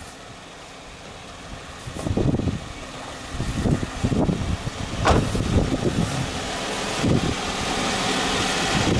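A vehicle's engine running with road and wind noise that builds over the last few seconds as it drives. Before that come a few irregular low thumps and a sharp click about five seconds in.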